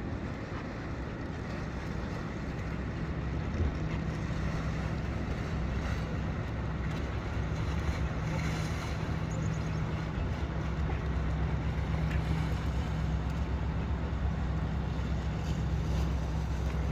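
Fishing boat's diesel engine running at a steady low hum as it motors past, growing louder over the first few seconds as the boat comes close, over a haze of wind and water noise.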